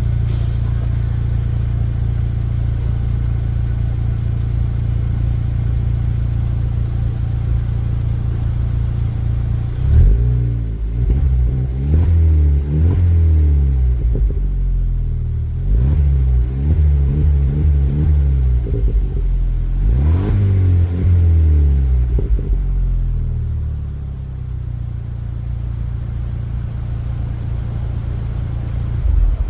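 Pulse Abarth's 1.3 turbo four-cylinder engine through its stock exhaust, idling steadily, then revved up and let fall about half a dozen times before settling back to idle.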